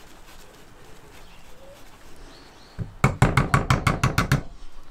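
A Microplane rasp grater working over a glass baking dish: after a quiet stretch, a quick run of about ten sharp, evenly spaced strokes, roughly seven a second, lasting about a second and a half.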